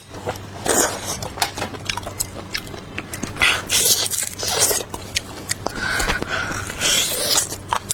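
Close-miked eating of beef bone marrow: irregular wet bites and chewing with sharp mouth clicks, and a brief squeaky sound about six seconds in.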